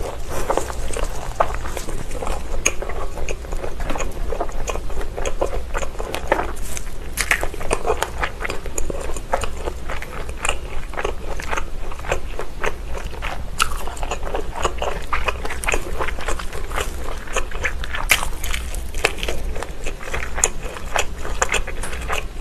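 Close-miked chewing and biting of Vienna sausages, a steady run of many small clicks and snaps from the mouth.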